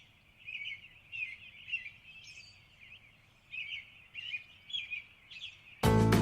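Birdsong sound effect: a string of short, quick bird chirps over a faint hiss, thin and narrow in pitch range. Loud music cuts in near the end.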